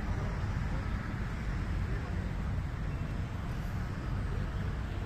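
Steady low rumbling background noise outdoors, with no distinct events standing out.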